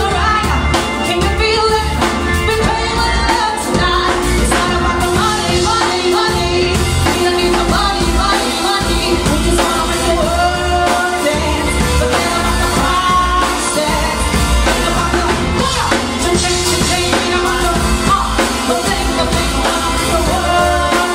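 Live band playing a pop song through PA speakers: drum kit, keyboard and electric bass under a man and a woman singing into microphones, without a break.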